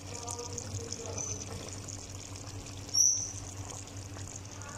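Chicken and gourd curry bubbling steadily as it simmers in an open pan. A short, high squeak about three seconds in is the loudest sound.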